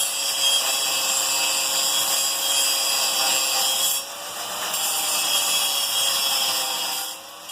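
Angle grinder grinding away steel at the shoulder of a sword's tang, running loud and steady with its motor pitch wavering under load. It eases off briefly about four seconds in, then fades out near the end.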